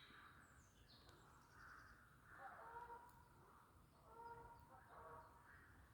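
Faint bird calls: short pitched calls recurring every second or two, with a few higher chirps about a second in.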